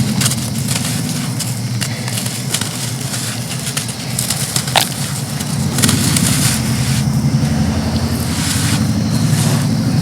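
Dry, packed sand chunks being crumbled and crushed, crackling and crunching irregularly over a steady low rumble.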